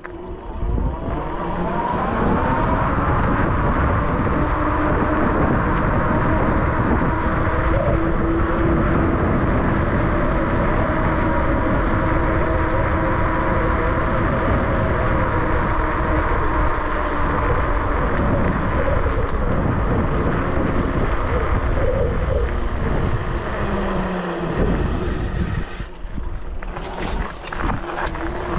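ENGWE X24 e-bike ridden at speed off-road: a steady rush of wind on the microphone and tyre noise, with a droning hum that wanders in pitch and slides down about three quarters of the way through. Near the end the rush dies away and a few sharp clicks are heard.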